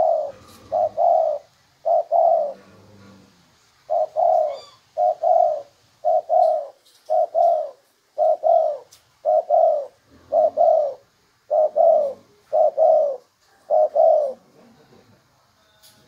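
Spotted dove cooing: a long run of short two-note coos, about one a second, with a brief pause about three seconds in.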